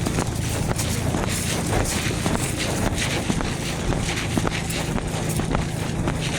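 Wind buffeting the microphone as a steady rumbling noise, with many short clicks and knocks scattered through it.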